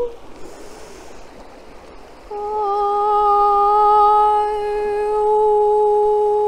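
A woman's voice humming long held notes: one note ends at the start, and after a pause of about two seconds a new, lower note begins and is held steady.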